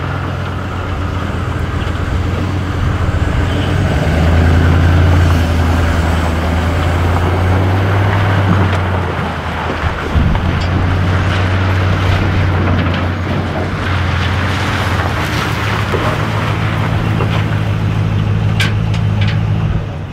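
Truck engine running steadily, a low even drone that eases off briefly about halfway through.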